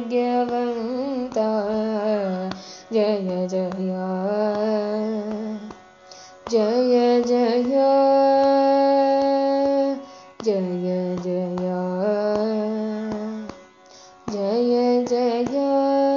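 Carnatic devotional music: a single melodic line with sliding, ornamented notes and long steady held notes, in phrases broken by short pauses.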